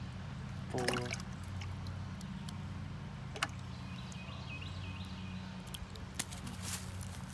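Wire-mesh minnow trap being handled as a caught fish is taken out: scattered sharp clicks and rattles, the loudest about a second in. A steady low hum runs underneath.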